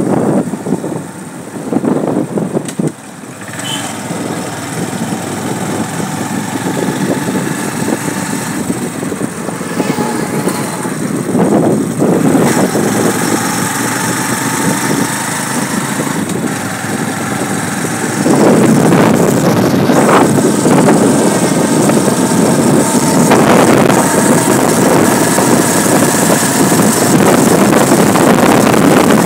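Motorcycle engine running while riding along a road, with road and wind noise over the microphone. The noise gets louder a little past halfway and stays loud.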